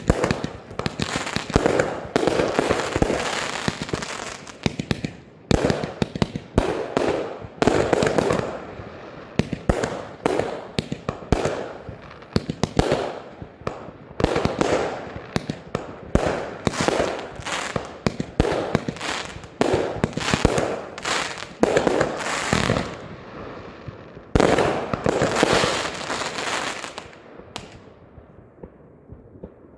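Consumer fireworks batteries (F2/F3 compound cakes) firing: a rapid, continuous series of launches and bangs with crackling bursts, dying away near the end.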